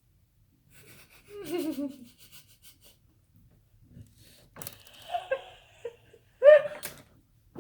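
Women laughing in a few short bursts, the loudest near the end.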